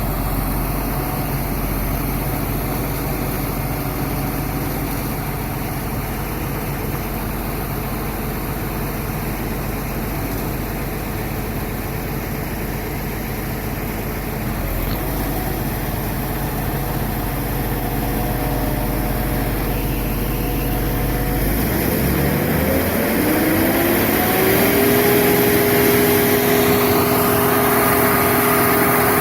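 Engine of an Al-jon 580 car logger/baler running steadily at low speed, then speeding up about 22 seconds in, its pitch gliding up over a few seconds and holding at a higher steady speed.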